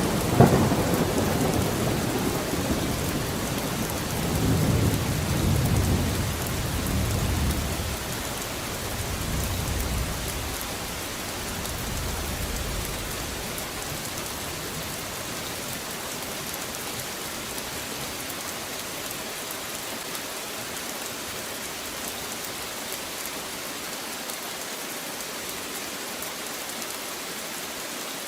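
Thunder rumbling over steady rain. The rumble is loudest at the start, rolls on in swells for about a dozen seconds and dies away, leaving the even hiss of rain.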